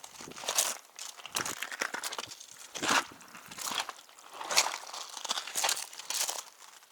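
Footsteps crunching on the forest floor, an uneven step about every second.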